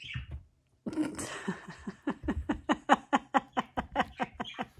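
A woman laughing in a long run of quick pulses, about five a second, starting about a second in.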